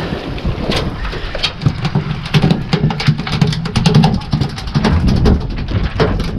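A rapid run of sharp knocks and clicks, thickest in the middle, over a steady low rumble of wind and boat.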